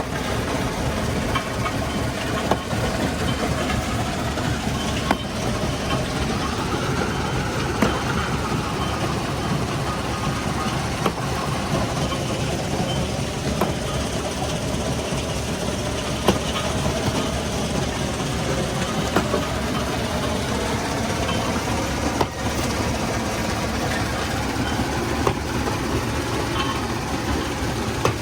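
Heavy machinery of a stone crushing plant running steadily, with sharp knocks every few seconds.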